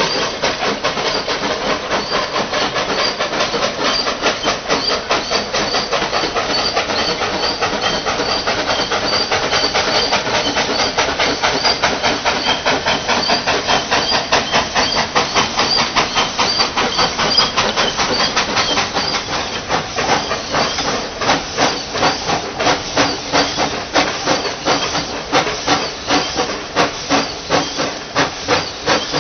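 Narrow-gauge steam locomotive working a train of wagons, its exhaust chuffing in a steady rhythm over a hiss of steam. About two-thirds of the way through, the beats become sharper and more separate.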